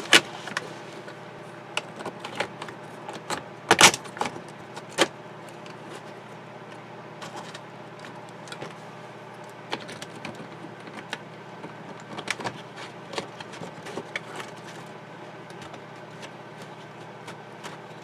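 Plastic 12-volt and USB sockets being handled and seated in their plastic faceplate: scattered small clicks and taps, with a louder knock about four seconds in and another about a second later, over a steady low hum.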